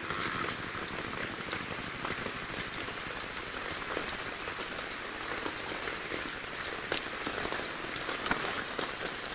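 Water pattering and dripping steadily, an even rain-like hiss with scattered sharper drips.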